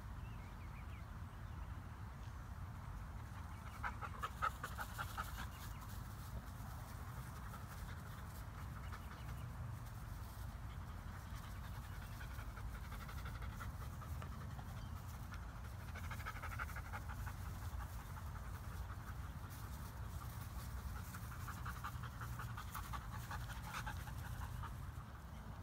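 A dog panting rapidly in several spells, over a steady low rumble.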